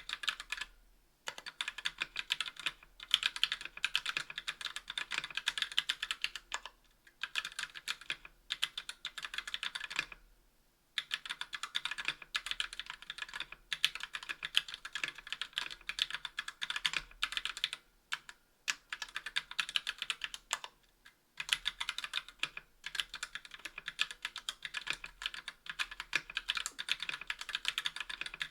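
Continuous typing on a 60% aluminium mechanical keyboard with stock TTC Gold V2 Red linear switches and GMK keycaps: fast runs of keystroke clacks with brief pauses between bursts.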